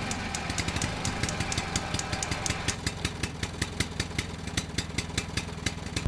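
An engine idling: a low steady rumble with a rapid, even ticking of about seven beats a second.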